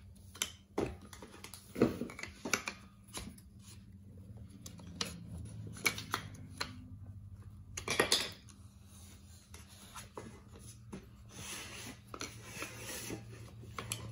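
Wooden jigsaw puzzle pieces being handled, clicking and knocking against the wooden puzzle board and metal cake pans in scattered, irregular taps, one louder knock about two seconds in and another about eight seconds in.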